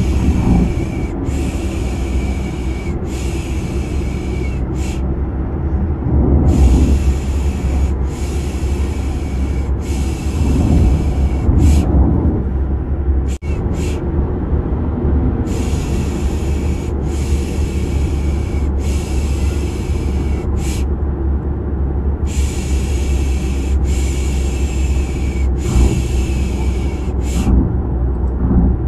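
A steady low car-engine drone, as heard inside a moving car, with rhythmic human 'pish pish' shushing laid over it to soothe a baby to sleep. The shushing comes in sets of three long shushes and a short one, with a short pause between sets, four sets in all.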